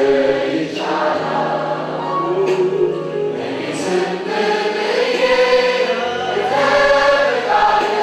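Gospel choir singing with musical accompaniment, a man's voice leading on a microphone.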